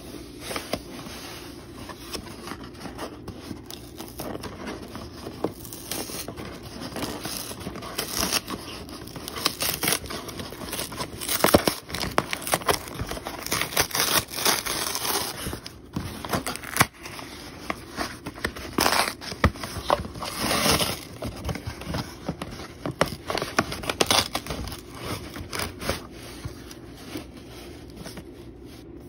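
A corrugated cardboard shipping box being opened by hand: irregular rustling, scraping and tearing of the flaps, with sharp crackles. Near the end it settles into quieter handling of a cardboard game box.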